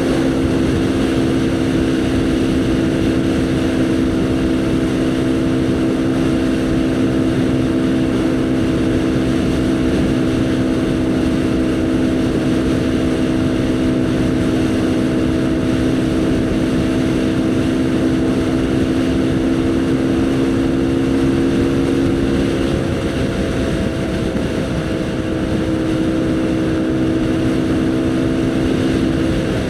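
Haojue NK150 motorcycle's single-cylinder four-stroke engine running at a steady cruising speed over wind and road noise. About 23 seconds in the engine note eases off a little, and it changes again near the end.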